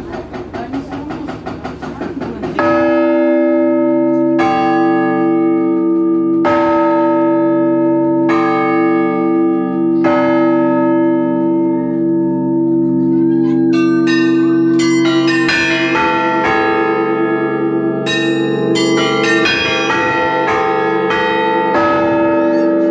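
Russian Orthodox church bells ringing the Easter peal. They start about two and a half seconds in: a large bell strikes about every two seconds over its own lingering hum, and from about halfway smaller, higher bells join in quick, dense strokes.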